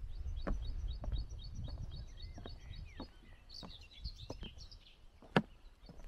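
A small songbird singing a quick run of high, repeated notes, about five a second, twice over. Footsteps knock on wooden boardwalk planks, with one loud knock near the end, over a low rumble in the first two seconds.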